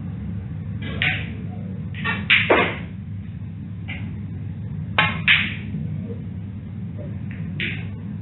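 Snooker cue and balls clicking as a shot is played: several short, sharp clacks, the loudest about two and a half and five seconds in. A steady low hum runs under them.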